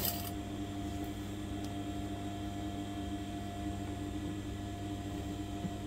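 A sewing machine's stitching run cuts off a moment in, leaving a steady low hum.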